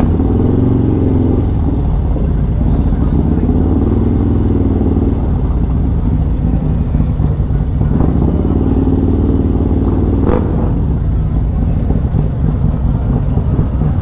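Harley-Davidson Road Glide's Screamin' Eagle 128 V-twin with a Khrome Werks 2-into-1 exhaust, running under way. Its pitch shifts a few times as the throttle changes. There is a single sharp knock about ten seconds in.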